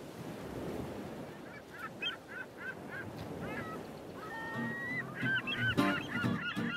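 Bird calls over a steady rushing noise. A quick run of short calls begins about a second and a half in and grows into many overlapping calls, with a few sharp clicks near the end.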